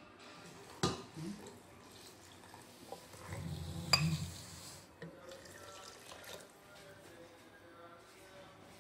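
Water poured from a glass jug into a stainless-steel cooking pot, the pour growing heavier around the middle, with two sharp clinks, about a second in and around four seconds in.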